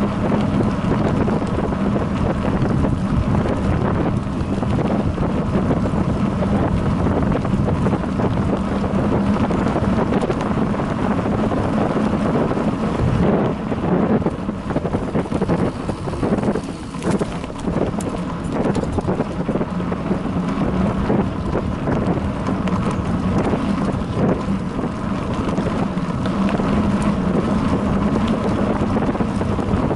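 Wind buffeting the microphone of a bike-mounted action camera as the bicycle is ridden along a bumpy dirt trail. A low rumble runs under it, with frequent knocks and rattles as the wheels hit the rough ground.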